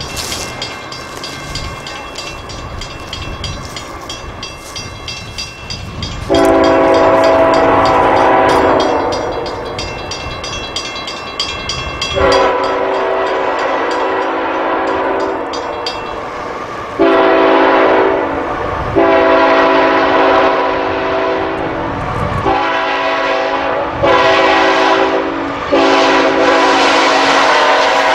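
Freight locomotive air horn sounding the grade-crossing signal: two long blasts, a short one, then a long one held with brief breaks as the train nears the crossing. Each blast is a loud multi-note chord over the rumble of the approaching train.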